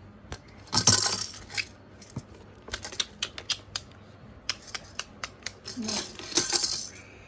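A baby's hands tapping and knocking on a perforated plastic basket: a string of light, irregular clicks and taps, with louder scraping handling noise about a second in and again near the end.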